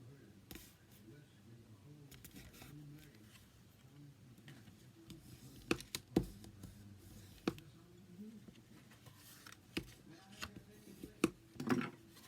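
Handling of cardstock pieces on a craft table: a scattering of short, sharp taps and clicks, mostly in the second half, as pieces are lined up and pressed into place.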